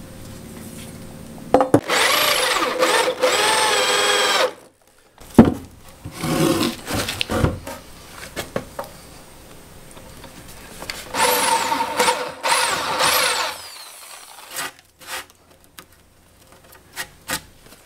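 Corded electric drill with an auger bit boring holes through a timber-frame beam: two runs of motor whine that rise and fall in pitch, about two seconds in and again about eleven seconds in. Knocks and clatter of the wood being handled come between and after them.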